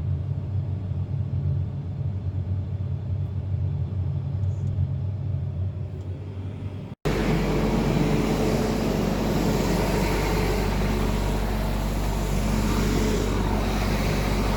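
Heavy farm machinery engine running steadily with a low rumble. About halfway through, an abrupt cut switches to a louder, fuller running-machine noise with a steady hum.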